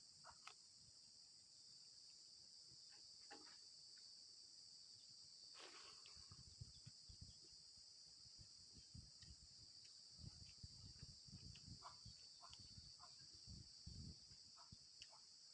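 Faint, steady chorus of crickets chirping. Under it are soft low knocks and small clicks, more of them from about six seconds in.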